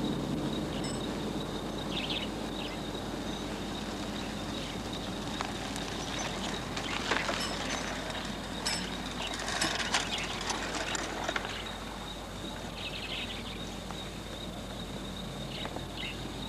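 Outdoor rural ambience: scattered short bird chirps, busiest in the middle stretch, over a steady hiss and a thin, high, steady tone.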